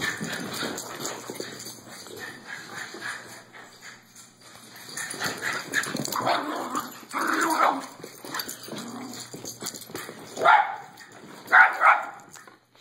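Two Mexican hairless puppies play fighting, giving irregular yips and barks, with two loud sharp barks near the end.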